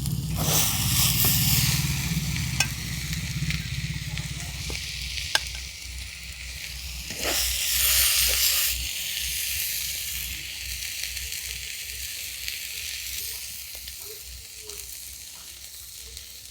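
Thick taro-leaf (kochu shak) curry sizzling in oil in a pan while being stirred, with scattered scrapes and clicks of the spatula. The curry is almost dry, the oil separating at the sides. The sizzle swells near the start and again about seven seconds in, then dies down toward the end.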